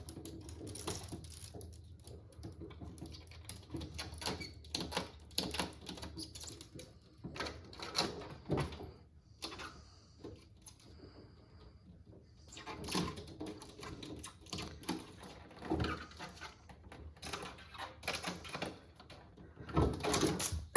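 Irregular clicking and tapping, some in quick clusters.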